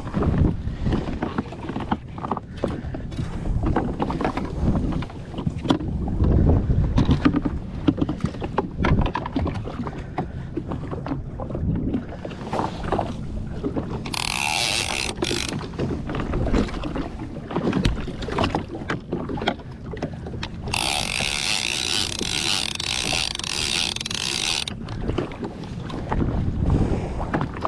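Knocks and handling noises on a jet ski's deck, with water slapping the hull and wind buffeting the microphone. Twice, about halfway through and again for about four seconds later, a loud steady hissing whir starts and cuts off abruptly.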